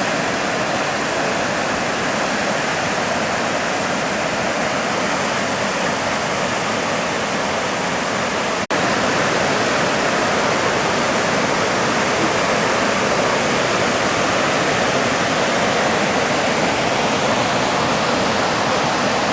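Kepler Cascades on the Firehole River, a steady rush of water cascading over rock. About nine seconds in it breaks off for an instant and resumes a little louder.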